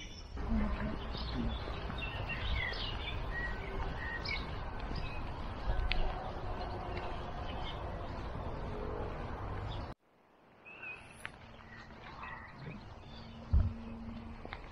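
Songbirds chirping in scattered short calls over a steady outdoor background. About ten seconds in, the sound cuts to a quieter stretch with a few faint chirps and a brief low thump near the end.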